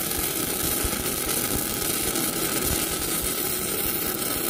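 Stick (SMAW) welding arc crackling and sizzling steadily as a tack weld is laid on a pipe joint, a tack the welder calls a little spicy.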